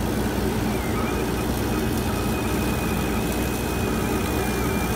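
Laser cutter running its cut-out pass: a steady mechanical hum and rush of air, with a thin high whine that wavers slightly in pitch.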